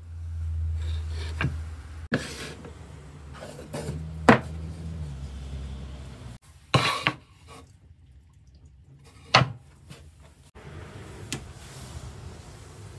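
Sharp knocks and short clatters of things being handled on a workbench, about six in all, over a low steady hum that stops about halfway through.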